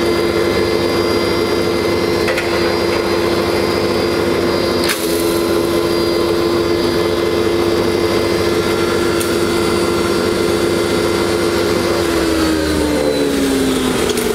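C-707 3-in-1 rice mill and masala grinder running as it pulverizes hard turmeric lumps into powder, with a steady hum and one sharp knock about five seconds in. Near the end the hum drops steadily in pitch as the machine slows down.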